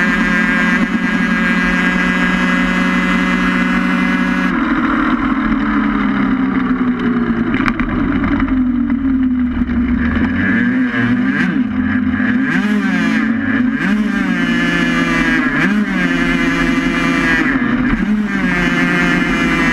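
Onboard engine of a small racing vehicle running hard at speed. Its pitch jumps up about four seconds in, then dips and rises again and again as the throttle comes off and on through the bends.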